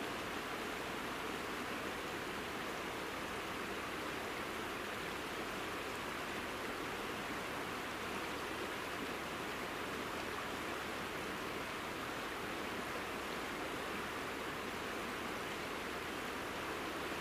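Steady, even rush of a mountain river's running water, with no changes in level.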